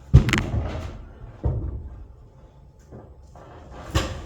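A few heavy wooden thuds as a 2x12 floor joist is set down and knocked into its metal joist hangers, the loudest right at the start, another about a second and a half in and one near the end.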